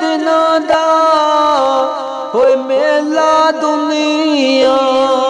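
A voice singing a Punjabi Sufi kalam, holding long drawn-out notes with small melodic turns and glides between them.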